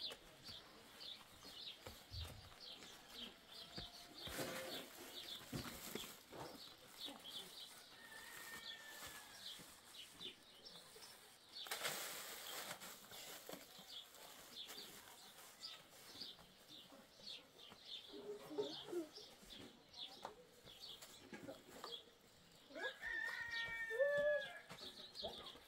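Faint small birds chirping over and over in short, high notes. About halfway there is a brief rush of noise, and near the end comes a louder short call with a bending pitch.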